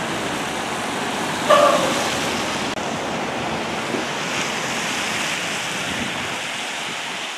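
Steady rushing noise of rain falling outdoors, with a brief pitched tone about one and a half seconds in.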